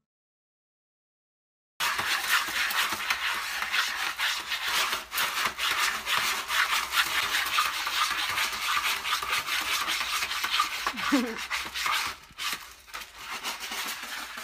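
A cat digging and scratching in a plastic litter tray of granular litter: a dense run of scratchy rasping with many small clicks of moving grains, starting about two seconds in after a gap of silence.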